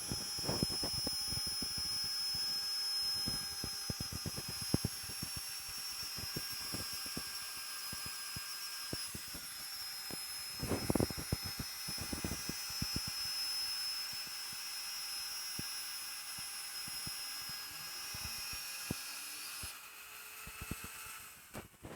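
Homemade CNC router with bicycle-chain and pulley drives running: a steady high whine with a constant stream of irregular ticks and clicks, and a cluster of louder knocks about eleven seconds in. It weakens near the end and then cuts off.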